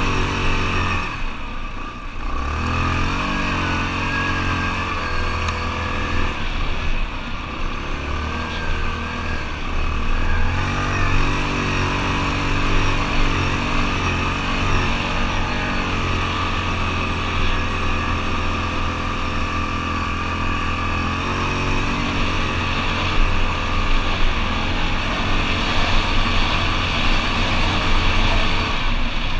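ATV engine running as it rides a trail, its note dipping and climbing again about two seconds in and around ten seconds in, and steady otherwise.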